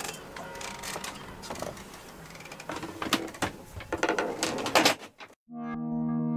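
Groceries and plastic bags being handled and stowed in a boat cabin: irregular rustling with scattered clicks and knocks. The sound cuts off about five seconds in, and soft synthesizer music begins.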